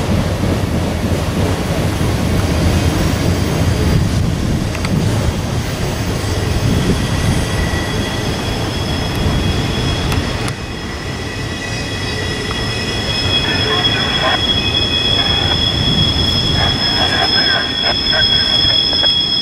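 A train rolling past with its steel wheels squealing on the rails: a steady high-pitched squeal that grows stronger about halfway through, over a low rumble that fades in the first half, with scattered clicks near the end.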